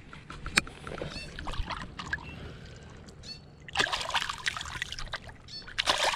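A smallmouth bass splashing in shallow water at the shore as it is released by hand, kicking away in two bursts: one about four seconds in, another near the end.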